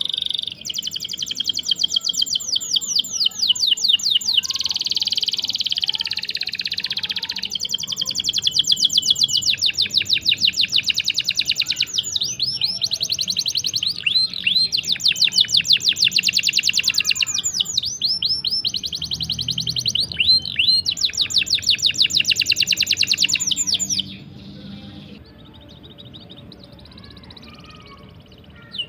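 A songbird singing long rolling trills of rapid, high repeated chirps, each run lasting several seconds with short breaks between. About 24 seconds in the song drops away to faint, scattered notes.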